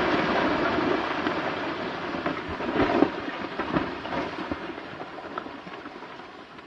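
Rumble of a controlled hard-rock blast dying away, with scattered knocks and clatter as broken rock and debris fall down the blasted face.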